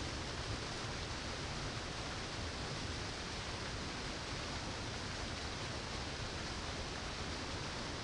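Steady rushing of a small waterfall into a pool: an even hiss that does not change.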